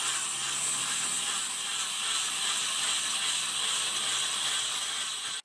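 Electric angle grinder running steadily with a sanding disc pressed against a wooden knife handle: a high motor whine under a continuous sanding rasp.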